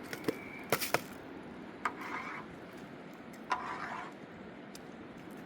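Several sharp knocks close together in the first second, then two short rasping scrapes, each starting with a knock, about two and three and a half seconds in.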